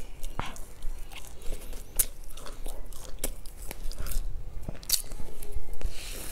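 Close-miked chewing of a soft chocolate swirl cake, with many small mouth clicks, and a fresh bite into the cake near the end.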